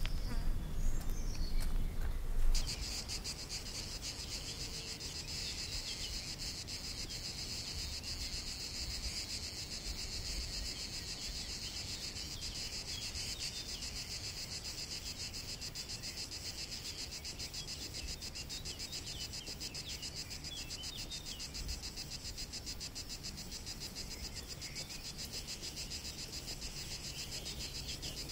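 A steady chorus of chirring insects, a fast even pulsing high up, which sets in about two and a half seconds in after a short stretch of louder, low noise.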